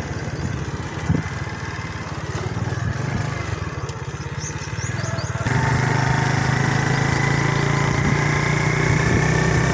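Small motorcycle engine running while riding along a dirt track; about halfway through its steady note gets louder.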